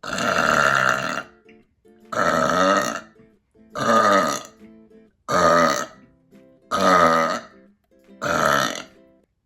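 A woman burping loudly six times in a row, each burp about a second long with short gaps between, brought up by the carbonation of the beer she has just drunk.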